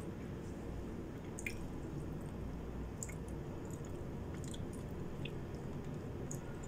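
Close-up wet mouth sounds of eating by hand: soft squishy chewing with scattered small smacks and clicks, over a low steady background hum. Near the end comes a bite into a tomato slice.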